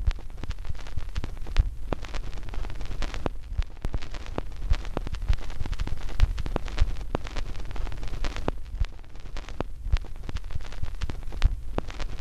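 Dense, irregular crackling and clicking over a steady low rumble, cutting off abruptly at the end.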